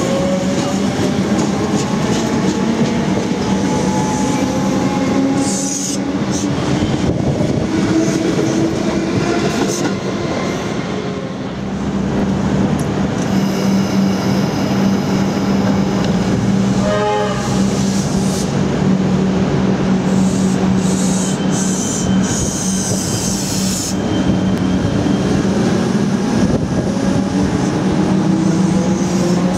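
Metro Trains Melbourne electric suburban train running along the platform. Its motors whine, rising in pitch near the start and again near the end, over a steady hum and the running of the wheels on the rails. A brief high tone sounds about halfway through.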